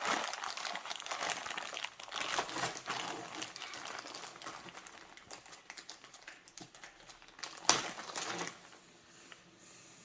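Packaging being crinkled and handled in a small room: dense crackling that thins out over several seconds, with one sharp click near the end before it goes quiet.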